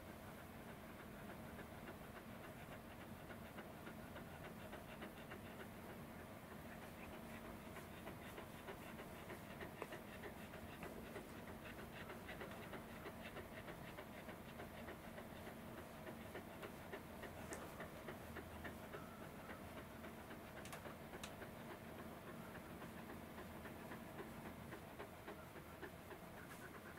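Welsh corgi panting softly with its mouth open, over a low steady hum.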